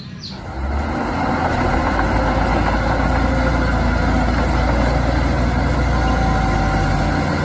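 Heavy bulldozer diesel engine running steadily with a deep low hum.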